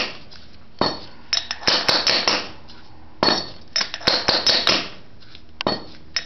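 Light hammer taps clinking on a steel pipe used as a drift, driving a carrier bearing down an MR2 driveshaft by its inner race. The taps come in quick runs of several, with short pauses between runs.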